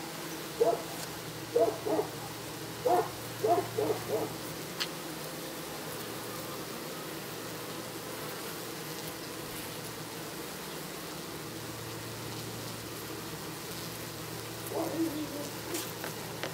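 Honeybees buzzing faintly as a low hum that swells and fades twice. Over it comes a string of short animal calls, about eight in the first four seconds and a few more near the end; these calls are the loudest sounds.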